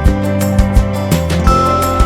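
Background music: sustained melodic notes over a bass line and a steady beat.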